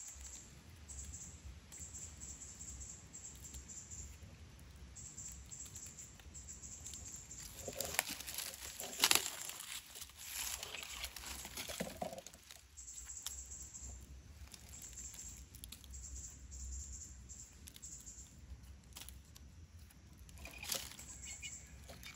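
Dry leaf litter rustling and crackling as hands dig into the forest floor and pull up mushrooms, with a cluster of louder crackles about eight to twelve seconds in and another near the end.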